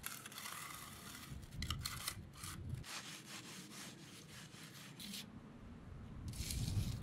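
A steel hand finishing tool scraping and rubbing over fresh concrete at the slab edge in repeated short strokes. The concrete is stiffening, which makes the edge hard to work.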